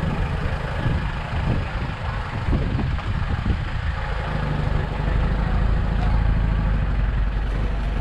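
A motor vehicle's engine running with a steady low rumble.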